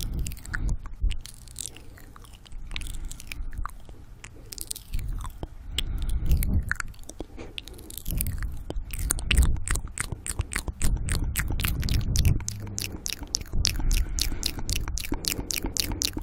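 Close-miked ASMR mouth sounds: wet clicks and smacks of lips and tongue, sparse at first and becoming a rapid run of several clicks a second in the second half, with heavy breathing.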